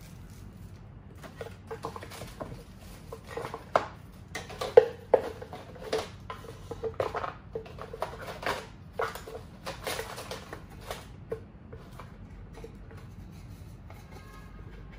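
A black plastic tray and wooden box parts being handled and fitted into a wooden gift box: a string of light knocks, taps and clicks, busiest in the first two-thirds and dying away about eleven seconds in.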